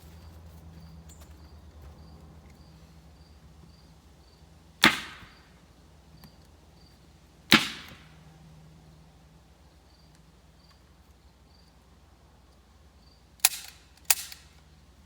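A hand staple gun firing four times, each a sharp snap: two single shots a few seconds apart, then two in quick succession near the end.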